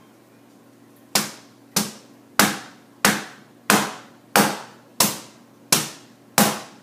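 Loaf soap mould filled with cold process soap batter being knocked down on the work table, nine sharp knocks about every two-thirds of a second starting about a second in. This is the usual tapping that settles a freshly poured layer and knocks out air bubbles.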